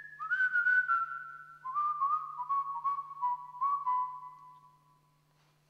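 A person whistling a slow line of notes that steps down in pitch, each note starting with a small scoop, fading out about five seconds in. A faint steady low hum lies underneath.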